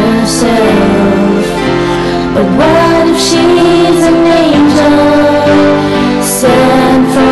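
Soundtrack music: a slow, tender song with a sung melody over sustained instruments.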